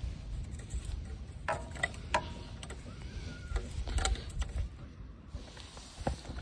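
An Allen key turning the bolt that holds the dB killer inside a motorcycle exhaust muffler: scattered light metallic clicks and ticks over a low rumble.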